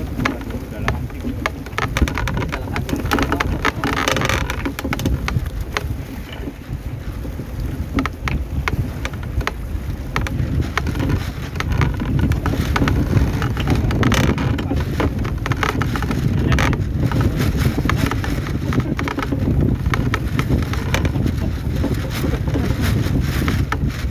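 Sea and wind noise: a steady low rumble with constant sharp crackles and clicks throughout.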